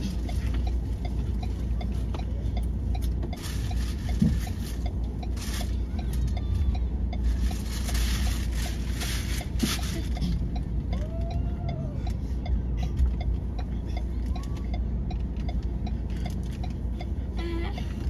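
Low steady rumble of a stationary car idling, heard from inside the cabin, with faint muffled sounds from the street outside.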